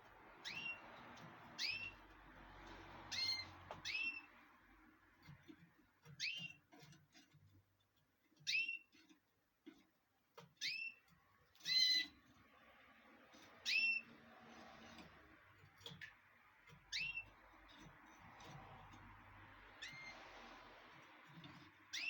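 Canary calling: a dozen or so short call notes, each a quick high chirp sweeping downward, spaced a second or two apart.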